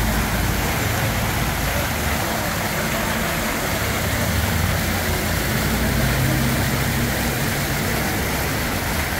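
Street traffic: vehicle engines running with a low, wavering hum under a steady hiss.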